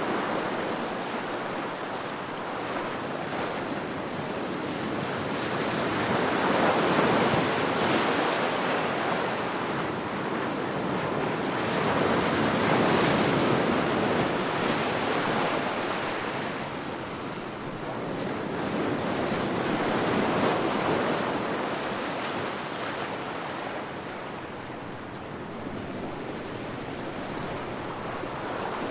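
Ocean surf breaking on a beach, the rush of the waves swelling and fading about every six or seven seconds.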